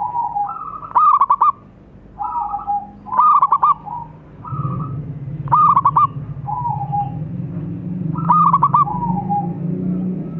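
Zebra dove (perkutut) singing its cooing song, the phrase repeated four times about every two and a half seconds: a drawn-out note, a lower one, then a quick run of three or four clipped notes. A low steady hum comes in about halfway.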